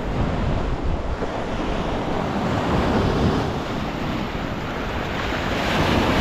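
Sea surf washing in at the shore, with gusty wind buffeting the microphone; the wash swells louder near the end.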